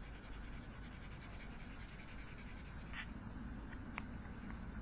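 Ink pen stroking and scratching on paper in quick repeated strokes as a drawing is coloured in, with a couple of light ticks about three and four seconds in.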